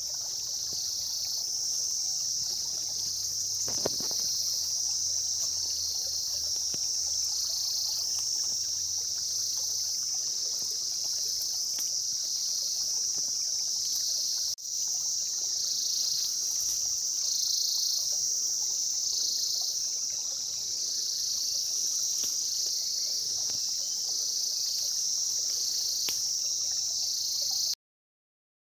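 Insects singing in a steady, high-pitched drone that pulses about once a second. It dips briefly about halfway through and cuts off suddenly near the end.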